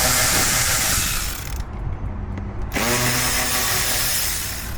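Power driver with a T30 Torx bit backing out door-panel bolts: one run that stops about a second and a half in, then a second run that spins up with a rising whine just under three seconds in and keeps going.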